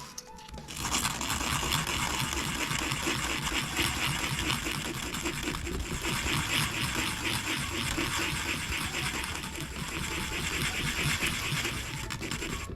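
Sandpaper rubbed rapidly back and forth on a fishing rod part, a steady scratchy rasping of quick strokes that starts about a second in.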